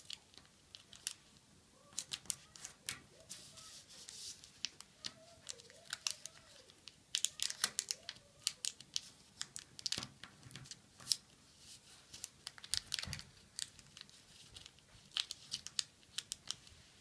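Origami paper crinkling and crackling as it is folded edge to center and creased flat, in many irregular sharp crackles and clicks.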